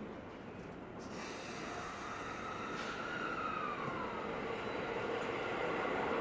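Electric commuter train running at the platform. A hiss starts about a second in, then a motor whine rises and falls in pitch while the running noise grows steadily louder.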